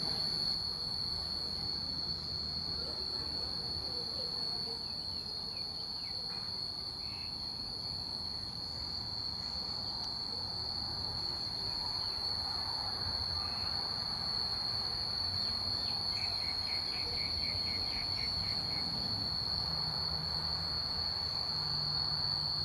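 Insects, cicadas or crickets, droning in one steady high-pitched tone without a break.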